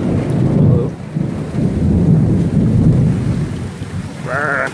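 Thunderstorm with rain and small hail falling, under a loud low rumble that fades somewhat in the last second. A short, wavering, high-pitched cry comes near the end.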